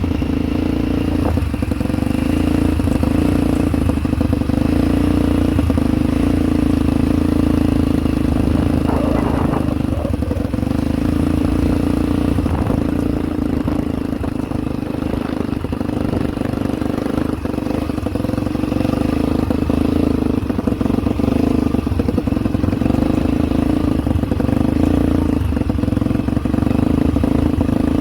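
ATV engine running steadily, with scattered rattles and knocks over it.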